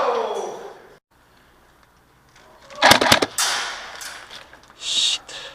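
A short burst of airsoft gunfire about three seconds in: several sharp clicks in quick succession. A brief hiss follows near the end.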